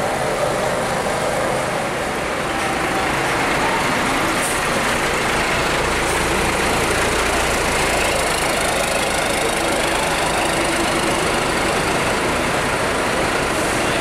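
Diesel engine of a large tour coach running as it moves off, a steady, loud rush of engine and exhaust noise with a heavier low rumble about halfway through.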